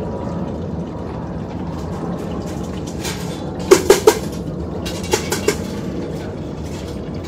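Steady rushing of a portable glassblowing furnace's burner, with sharp ringing clinks of tools handled at the bench: three quick ones about halfway through, then three more a second later.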